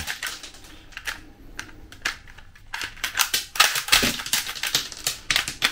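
Spring-loaded plastic toy Glock 21 being fired: its slide snaps back and throws out plastic cartridges, making a string of light plastic clicks and clatters, a few early on and a quicker run of them in the second half.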